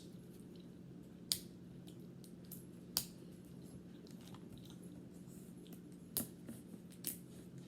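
Faint chewing of Swedish Fish gummy candy, with about four sharp, brief clicks spread through it over a steady low hum.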